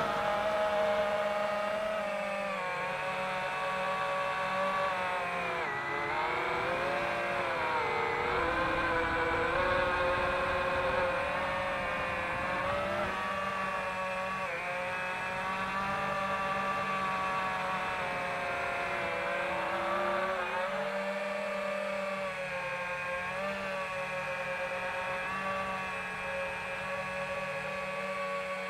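FPV quadcopter's brushless motors whining: several tones at once whose pitch keeps rising and dipping with the throttle, with dips about six and eight seconds in, over a steady low hum.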